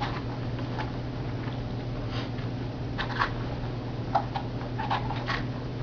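A deflated bicycle inner tube and tire being worked together by hand: scattered soft rubbing, squeaking and tapping noises of handled rubber, over a steady low hum.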